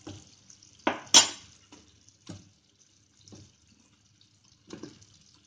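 Fried gulab jamuns dropped one at a time into boiling sugar syrup in a steel pan, each landing with a splash. The two loudest come about a second in, with smaller plops every second or so after.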